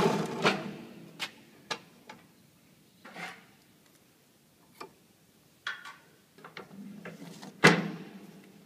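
A PP string wound filter cartridge winding machine running down and stopping, followed by scattered clicks and knocks from its metal arm and spindle as the wound polypropylene cartridge is taken off. The loudest knock comes about three-quarters of the way through.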